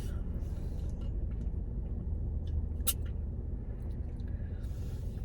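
Steady low rumble of a car heard from inside the cabin, with one sharp click about three seconds in and a few faint ticks.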